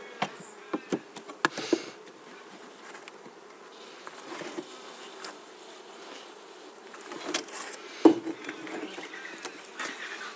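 Honeybees buzzing steadily around an opened top-bar hive, with scattered clicks and knocks from the wooden top bars being handled; the loudest knock comes about eight seconds in.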